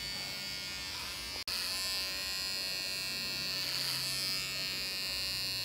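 Electric hair trimmer with a comb guard buzzing steadily as it cuts a boy's hair, dropping out for an instant about a second and a half in.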